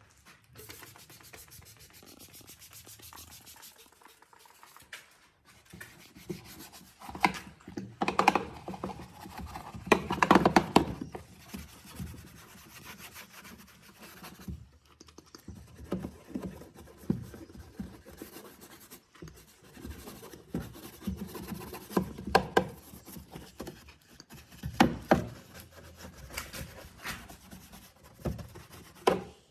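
Brush or cloth rubbing and scrubbing on car interior surfaces in irregular strokes, with louder bouts of scrubbing a quarter of the way in and again past two-thirds.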